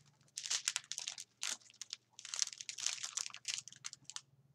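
Small plastic bags of diamond-painting drills crinkling as a strip of them is handled, in two spells of rustling with a short pause between.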